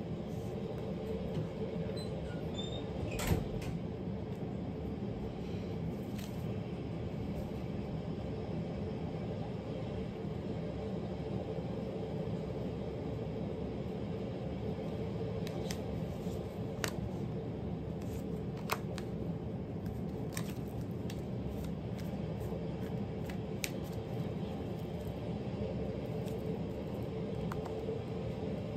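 Steady low hum of room tone, with one sharp click about three seconds in and a few faint light clicks and taps later on.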